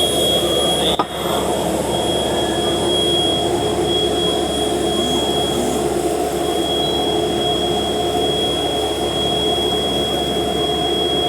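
Heavy machinery running steadily, a constant mechanical drone with a high whine over it, and a single sharp click about a second in.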